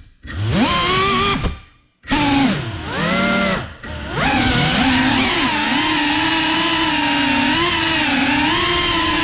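GEPRC Cinelog cinewhoop's electric motors and propellers whining, the pitch gliding up and down with throttle. The sound drops away almost to nothing twice in the first four seconds, then settles into a steady hum that wavers slightly in pitch.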